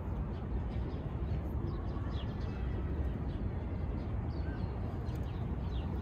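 Steady low hum of city traffic with a few short, high bird chirps scattered through it.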